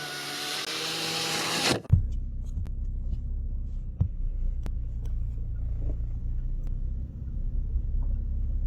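Car horn honking in one steady blast of about two seconds. It cuts off with a knock, and then the car's engine rumbles steadily, with a few sharp clicks over it.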